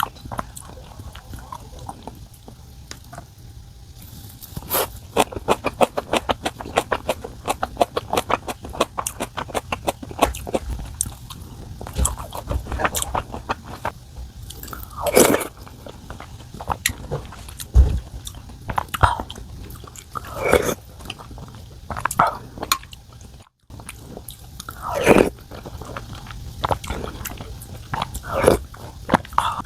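Close-miked eating sounds: a person chewing crisp food, a fast run of crunchy clicks from about five seconds in, then louder, longer mouth sounds every few seconds.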